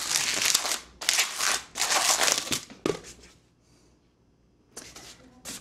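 Long latex modelling balloon being twisted and rubbed by hand while a pinch twist is made, giving rubbery rubbing and twisting noises in several bursts. They stop about three seconds in and start again near the end.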